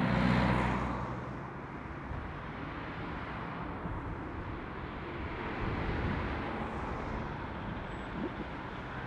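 Road traffic at a roundabout: a car passes close by at the start, then a steady hum of tyres and engines, swelling again about six seconds in as another car comes round.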